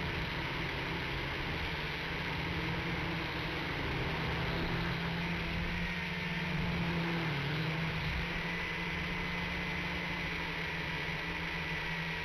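Toy quadcopter's brushed motors and propellers buzzing steadily, heard close up from its onboard camera, the pitch dipping briefly about seven seconds in.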